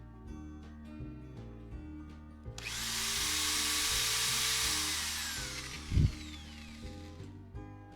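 Electric drill boring into the wooden side of an acoustic guitar, starting about two and a half seconds in, running for about four and a half seconds and falling in pitch as it winds down. A single low thump about six seconds in.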